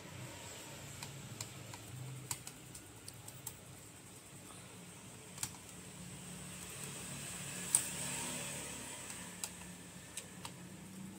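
Scattered small clicks and taps of a screwdriver working on the screws of a laptop's CPU heatsink, irregular and sparse, with one sharper click near the middle, over a low steady hum.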